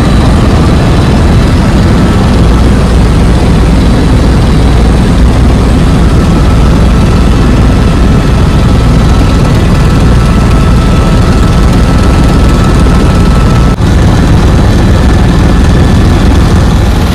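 Helicopter engine and rotor noise heard from inside the cabin in flight: a loud, steady drone with a heavy low rumble.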